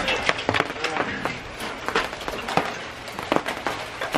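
Hailstones hitting a corrugated awning overhead: many quick, irregular sharp ticks.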